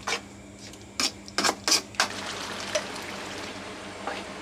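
Metal spoon stirring a thick curry in an aluminium pan, knocking and scraping against the pan several times over a steady hiss.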